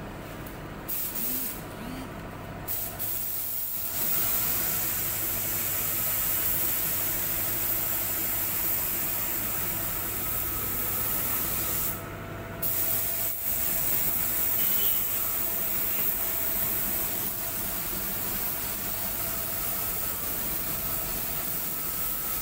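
Compressed-air paint spray gun hissing as a car body is sprayed: two short blasts in the first few seconds, then long continuous spraying with a brief break about halfway through. A steady low hum runs underneath.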